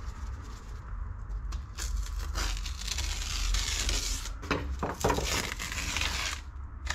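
Paper stencil and masking being peeled off a freshly spray-painted board, crinkling and tearing, after a stretch of hissing a couple of seconds long.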